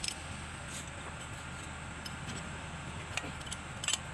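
A few light metallic clicks of a spanner against the rocker arms and valve gear of a Kubota M9000 diesel engine's opened cylinder head, spread over a steady low hum.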